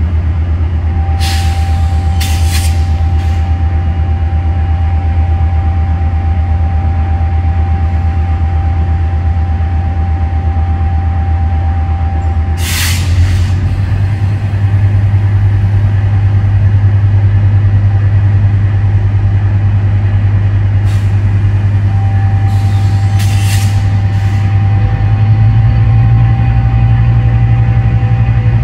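Metrolink Siemens Charger SC-44 diesel locomotive idling at a station stop with a steady low engine drone and several sharp hisses of released air, one big hiss about halfway through. The engine steps up in speed about halfway through and again near the end as the train readies to depart. A thin steady whine comes and goes.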